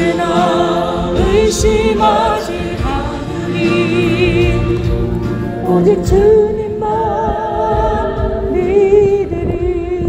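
Christian gospel song in a passage without lyrics: a melody of long held notes with vibrato over several other sustained tones.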